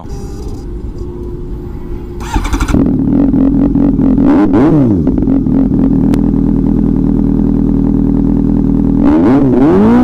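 Suzuki GSR 750 inline-four engine running through an aftermarket Austin Racing exhaust, steady and getting louder about three seconds in. The throttle is blipped, the revs rising and dropping back, once just before the five-second mark and again near the end.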